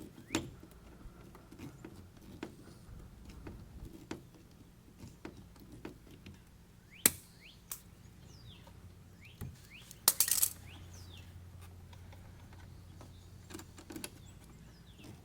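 Scattered clicks and knocks of hand work on an electrical outlet box, with one sharp click about seven seconds in and a brief rattle about ten seconds in.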